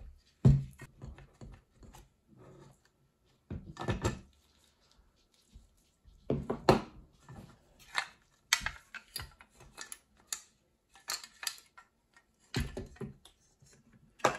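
Hand work on a clutch pedal and its plastic toothed quadrant: irregular clicks, knocks and scrapes as the quadrant is worked off the pedal, with locking pliers and parts knocking against a wooden table. The loudest knock comes about half a second in.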